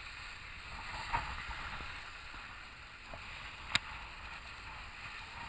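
Snowboard sliding over groomed snow: a steady scraping hiss of the board on the snow, with a single sharp click a little under four seconds in.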